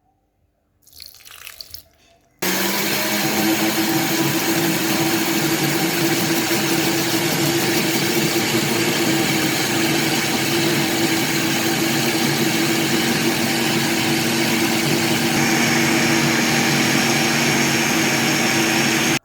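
Electric kitchen blender switched on about two and a half seconds in and running steadily at full speed, blending cubed cucumber and grapes with water into a drink, then cutting off suddenly at the end.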